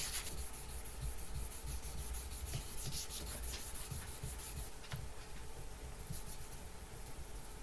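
Fine micromesh sanding pad rubbed back and forth over stainless steel frets, a faint hissing scrape in repeated strokes, polishing the fret tops.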